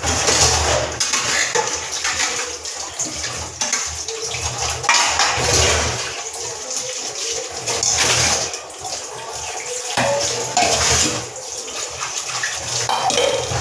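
Tap water running into a sink while stainless steel plates and pots are scrubbed and rinsed, with frequent clinks and clatters of metal dishware.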